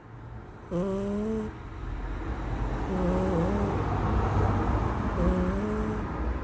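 Domestic cat snoring: three pitched snores, each under a second long and about two and a half seconds apart, with noisy breathing between them.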